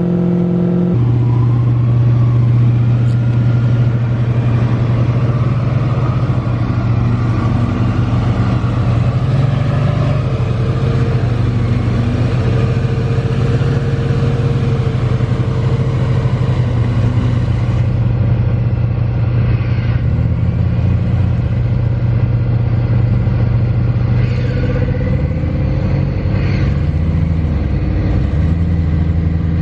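Engine of an off-road 4WD running steadily at raised revs, its pitch shifting a few times in the later part.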